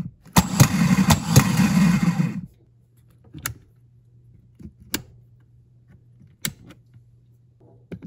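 Automotive starter motor, mounted bare on a test board with no engine to turn, spinning freely with a loud whir for about two seconds when the push-button start is pressed, then cutting off. Three sharp toggle-switch clicks follow, spaced out over a faint low hum.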